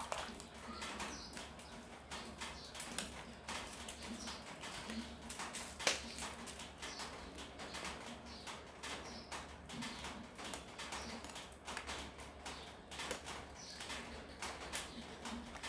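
Metal ladle stirring a pot of soup, knocking and scraping against the side of the metal pot in a steady run of light clinks, with one sharper knock about six seconds in.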